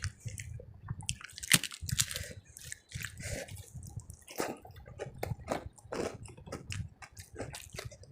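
A person chewing and biting food close to the microphone, with a dense run of wet, irregular mouth clicks and squishes.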